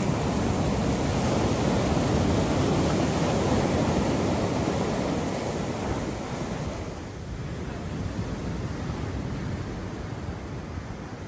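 Ocean surf breaking over a rocky reef flat, with seawater rushing and foaming through channels in the rock. The sound grows quieter a little past halfway.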